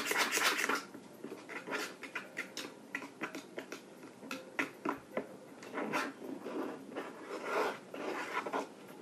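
A paintbrush stirring thick homemade flour-and-salt paint in a plastic bowl: a quick run of scraping and tapping in the first second, then softer, irregular scrapes, taps and squelches.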